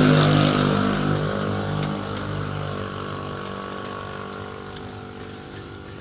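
An engine running with a steady hum, loudest at the start and fading away over several seconds, as of a motor vehicle moving off.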